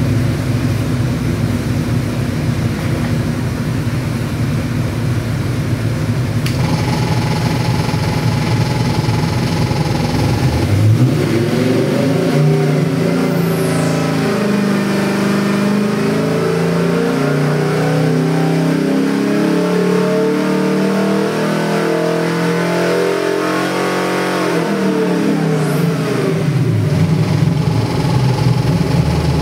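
Chevy 383 small-block V8 with Holley Sniper fuel injection running on an engine dyno. It runs steadily at first, then about ten seconds in its revs climb in a long, even sweep under the dyno's load for some thirteen seconds. Near the end the revs fall back quickly to a steady run.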